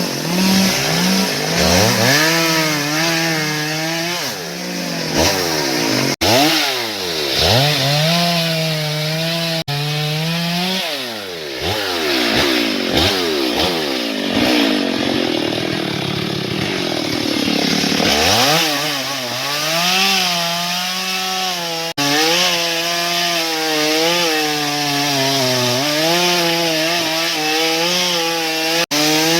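Stihl MS 382 two-stroke chainsaw cutting into the trunk of a large teak tree, its engine pitch sagging as the chain bites into the wood and climbing again as it frees up. The sound cuts out for an instant several times.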